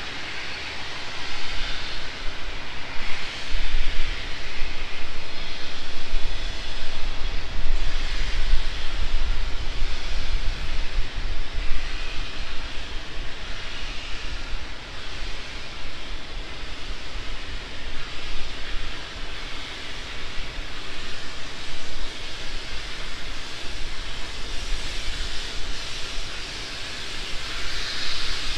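GWR Hall-class 4-6-0 steam locomotive working: a steady low rumble under a rushing noise that swells and fades every few seconds. The rumble is heaviest in the first half.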